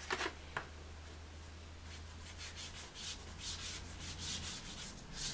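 Pastel rubbed over paper in short, repeated strokes: a faint dry scratching that starts about two seconds in.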